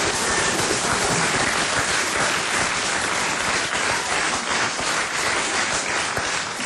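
Studio audience applauding, a dense steady patter of many hands clapping that eases off slightly near the end.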